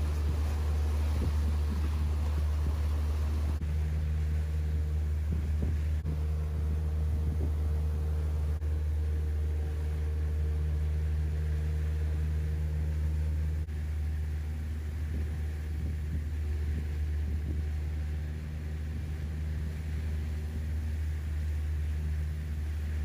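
A boat engine running steadily, a deep even drone with a faint hum above it, a little quieter from about two-thirds of the way in.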